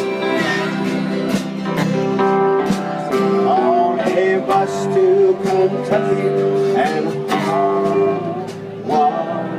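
Live country band playing an instrumental break: acoustic guitars strumming with a harmonica playing bending, wavering melody notes over them.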